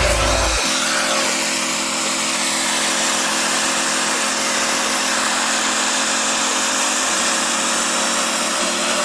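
A workshop power tool running steadily with a constant hiss.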